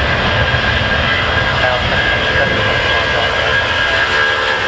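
Jet airliner engines running steadily: a thin high whine over a low rumble.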